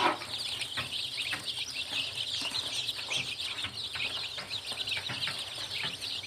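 A brood of day-old chicks peeping together, a dense unbroken chorus of short high cheeps. A brief knock sounds right at the start.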